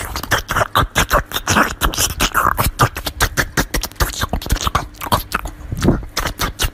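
A small white Pomeranian puppy chewing a slice of watermelon close to the microphone: rapid, wet crunching bites of the juicy flesh, several a second.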